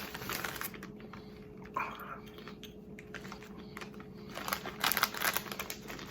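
Chewing a mouthful of extra-thick-cut ridged potato chips, with crisp crunching at the start, a quieter stretch, then more crunching near the end.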